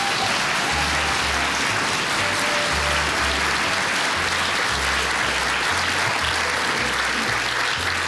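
Studio audience applauding steadily, over music with a bass line stepping from note to note.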